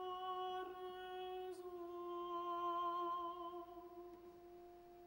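Unaccompanied soprano voice holding one long, steady note that passes into closed-mouth humming and fades towards the end.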